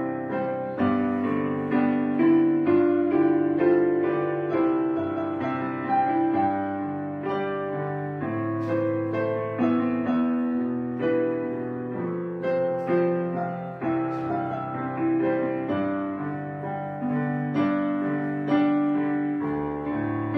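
Background piano music: a slow, gentle run of chords and single notes, each struck and then fading away.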